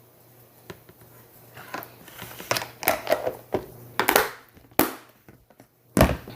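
Homemade slime being squished and handled by hand, making a run of crackling, squishing noises, then a thump near the end.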